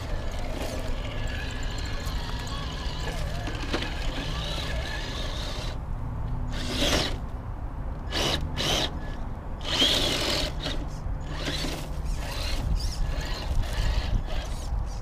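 Traxxas TRX-4 Sport RC crawler's electric motor and gears whining as it drives over rough ground. A few louder bursts of noise come in the middle.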